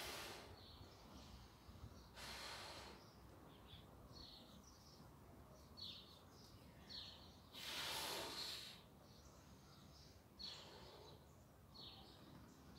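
Quiet garden air with two long breathy exhales, about two and eight seconds in, and short high bird chirps scattered throughout.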